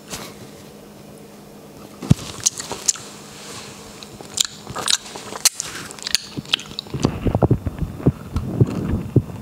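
Close-miked eating sounds: a grape eaten with sharp, wet mouth clicks, then denser biting and chewing of a chocolate-covered strawberry from about seven seconds in.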